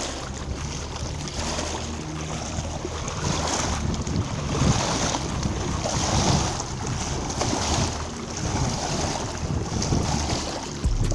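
Small river waves lapping and splashing against a sandy, rocky bank, in surges every second or so, with wind on the microphone and a steady low hum underneath.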